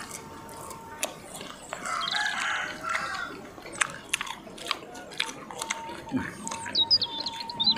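Close-up biting and chewing of crisp mango slices: a run of short crunching clicks and mouth sounds.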